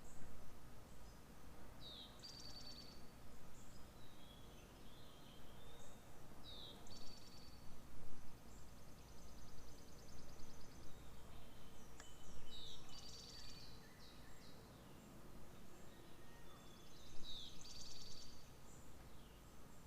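Outdoor garden ambience with songbirds: one bird repeats a short high song, a falling note and then a fast trill, about every five seconds, with other scattered chirps over a steady low background rumble.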